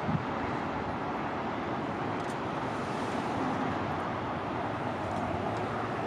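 Steady outdoor traffic noise, an even hiss and rumble with no single event standing out.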